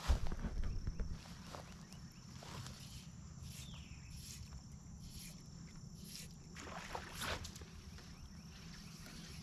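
Outdoor ambience with low wind rumble on the microphone, a louder bump or gust in the first second, a steady high-pitched whine and a few short, high chirps.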